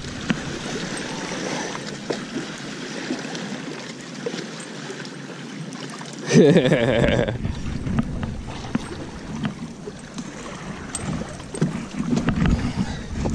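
Small waves lapping against a rocky shoreline, with wind on the microphone. A person's short call comes about halfway through, and there are low bumps near the end.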